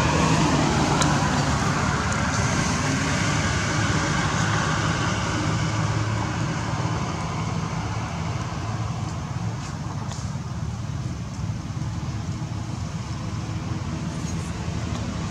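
Steady low rumble of motor traffic, easing a little past the middle and building again near the end.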